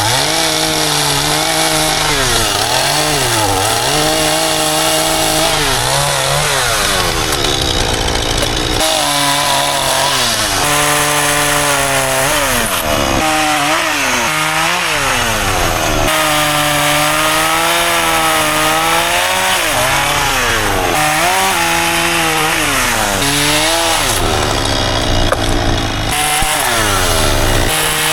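Chainsaw engine running hard, its pitch repeatedly dropping and climbing back as it revs and takes load, as when cutting wood.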